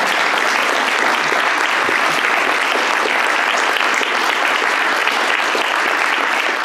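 Applause: many people clapping together, steady and sustained.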